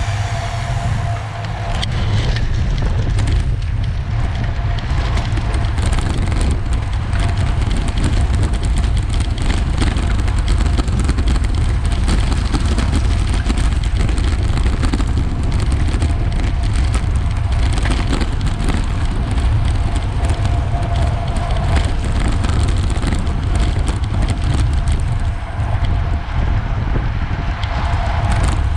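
Steady rush of wind buffeting the microphone while moving at speed, with a faint steady hum underneath.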